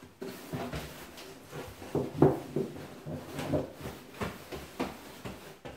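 Plastic capsule eggs clattering and rustling inside a cardboard box as a hand rummages through them: irregular clicks and knocks, a few a second.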